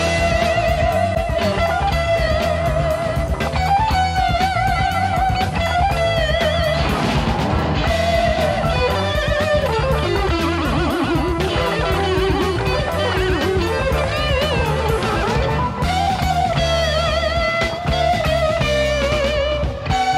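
Selder Stratocaster-style electric guitar playing a sustained, amplified lead melody. Its notes waver with tremolo-arm vibrato and dip down in pitch around ten to twelve seconds in. A rock backing track with bass and drums runs underneath.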